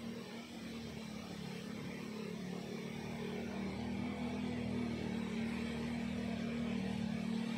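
A steady low mechanical hum, like a motor running, that slowly grows louder.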